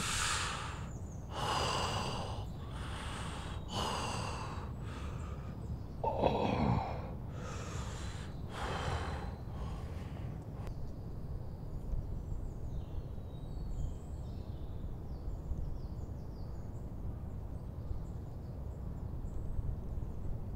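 A man's sharp breaths and gasps as he comes to, about eight in the first ten seconds, with a short voiced groan falling in pitch about six seconds in. After that, faint birdsong over a steady low outdoor rumble.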